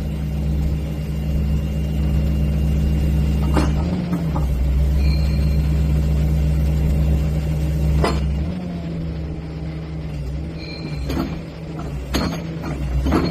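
Excavator's diesel engine running with a steady low rumble, its pitch dipping briefly twice as the hydraulics take load. Several sharp knocks come through it, mostly in the second half.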